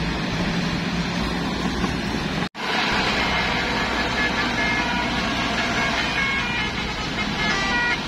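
Passing road traffic: car, box-truck and motorbike engines and tyres, broken by an abrupt cut about two and a half seconds in. In the second half, a run of short high notes changing in pitch sounds over the traffic.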